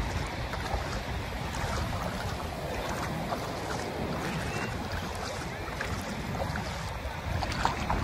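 Ocean surf washing steadily up a shallow beach, with wind rumbling on the microphone. A few faint short bird calls come through, around three seconds in and near the end.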